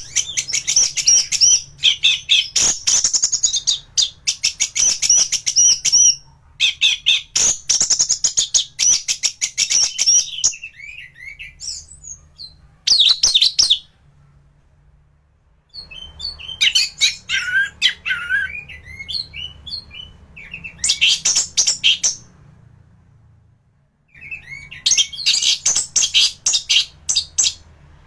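Orange-headed thrush (anis merah) in full song, with loud, fast, chattering phrases of several seconds each broken by short pauses.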